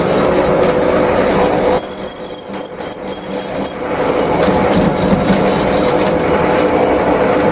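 Metal lathe running while the cutting tool deepens a pulley's groove toward its 10 mm depth: a steady machine hum with a grinding cutting noise. About two seconds in, the cutting noise thins for a couple of seconds while a thin high squeal sounds, then the cutting noise returns.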